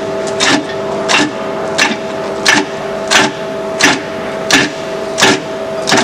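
VB36 bowl-turning lathe running with a steady two-note hum while a tool cuts the turning wood, with a sharp knock repeating about three times every two seconds, in time with the work's rotation.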